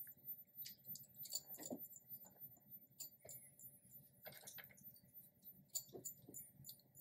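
Near silence with faint, scattered clicks and small rustles from hands threading a 1904 Free treadle sewing machine and handling its handwheel.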